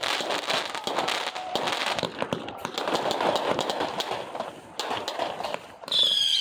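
Fireworks crackling: a dense run of rapid pops and crackles that thins out after about four seconds. Near the end a loud, high whistle starts and falls slightly in pitch.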